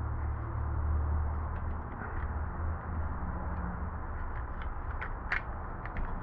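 Small plastic motorcycle indicator parts being handled, with a few light clicks, the sharpest about five seconds in, over a steady low hum.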